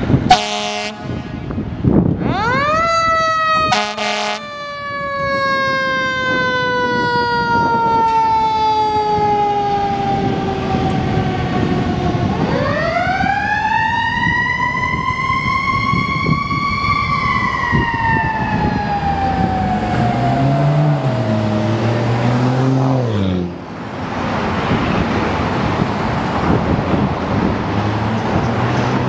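Fire engine responding with its siren: a short horn blast, then the siren rising quickly and falling slowly for about ten seconds, broken by a second horn blast. The siren then rises again and falls away, followed by a low wavering tone and road traffic.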